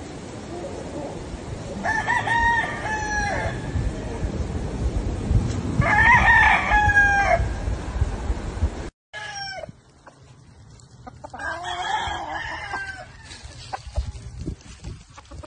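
Gamefowl roosters crowing: three long crows about two, six and twelve seconds in, each about a second and a half, with a shorter call just after nine seconds.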